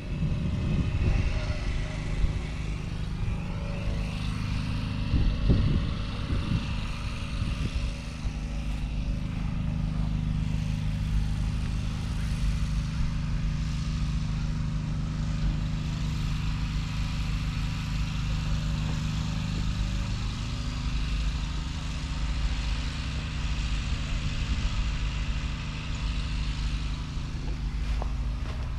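An engine running steadily at idle, a low even hum that holds its pitch; one of its tones drops away about twenty seconds in. Short bursts of louder low rumble come about a second in and again around five seconds in.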